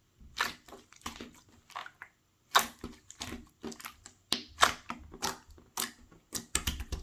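Irregular sharp crunches, roughly one every half second, quickening into a fast run near the end.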